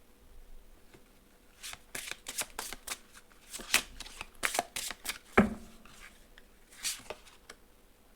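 A deck of oracle cards being shuffled and handled: a quick run of crisp card snaps and riffles, with one heavier thump about five and a half seconds in.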